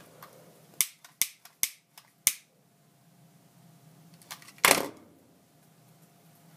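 A quick run of sharp clicks and taps, then one louder knock later on: the plastic lacrosse head and its nylon string being handled while it is strung.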